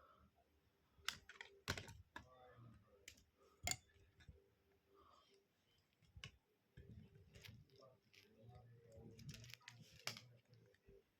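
Faint clicking and rattling of plastic LEGO Technic pieces being handled and pressed together, with a few sharper snaps, about two and four seconds in and again near the end.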